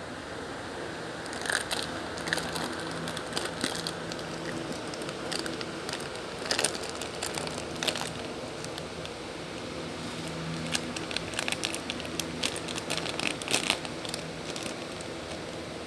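A Shih Tzu chewing and biting on a plastic snack packet: irregular crinkles and crackles of the wrapper, coming in denser runs about six to eight seconds in and again near the end.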